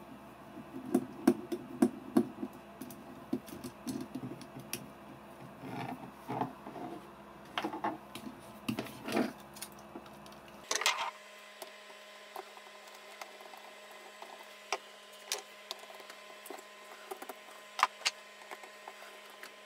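Small irregular clicks and taps from a screwdriver and hands working the screws and plastic casing of a JVC GX78 camera, one of the screws stripped. The clicks come thickly at first; after an abrupt change in the background about eleven seconds in, they are sparser and sharper.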